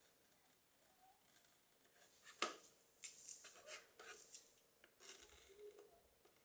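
Faint scraping and rubbing of plastic being handled, with one sharp click about two and a half seconds in and a run of small scrapes and clicks after it. The sounds fit a cut polypropylene electrode patch being fitted and tacked onto the cracked air filter housing.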